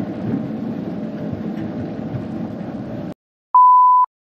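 Steady engine and road noise heard from inside a moving vehicle, cutting off abruptly about three seconds in. After a brief silence comes a single steady test-tone beep of about half a second, the kind played with colour-bar test patterns.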